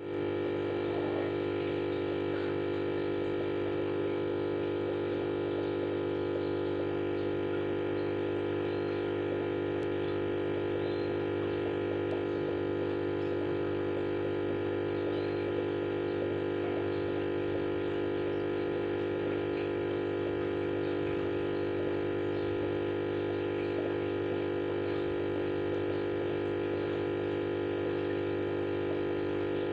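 Steady electric hum of an aquarium pump running, with faint scattered ticks.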